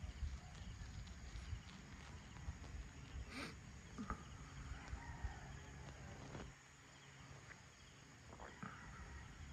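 Night-time outdoor ambience: a faint, gusty low rumble that drops away for a couple of seconds past the middle, with a few scattered short animal chirps and calls and one sharp click.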